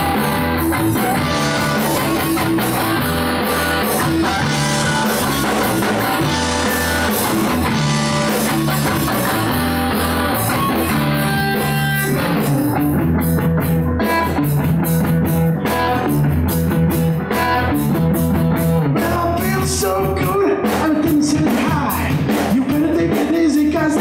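Live rock band playing: a Stratocaster-style electric guitar leads over bass guitar and a drum kit. About halfway through, the cymbal wash drops away and the drum hits stand out more sparsely.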